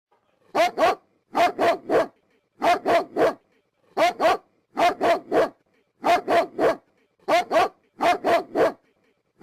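A dog barking in quick clusters of two or three barks, a cluster roughly every two-thirds of a second, starting about half a second in.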